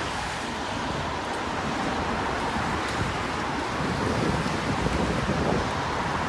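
Outdoor street noise: a steady wash of road traffic with wind buffeting the microphone, the low rumble swelling a little about four seconds in.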